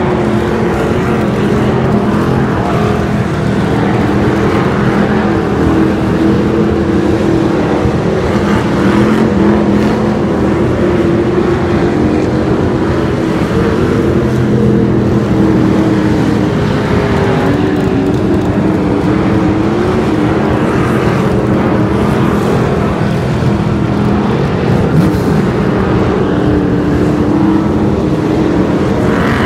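Several hobby stock race cars' engines running loudly together, their pitch wavering up and down as they circle the track.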